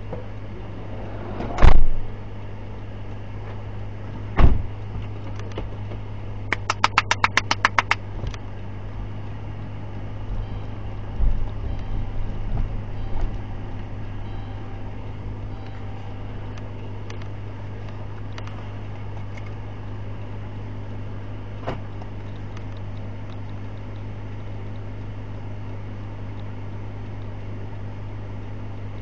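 Minivan cabin with the engine humming steadily. About two seconds in, a car door slams shut hard, followed by a second thump a few seconds later and a quick run of about a dozen sharp clicks. The van then pulls away.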